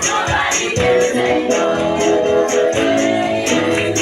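Gospel praise music: voices singing over a band, with a tambourine keeping a steady beat.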